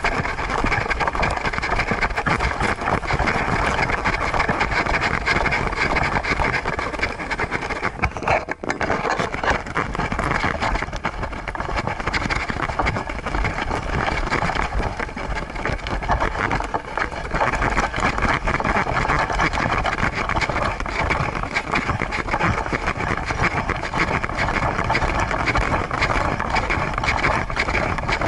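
Steady rumbling, rustling noise on a camera strapped to a walking Siberian husky: wind on the microphone and the mount jostling and rubbing against the dog's fur, dipping briefly about eight seconds in.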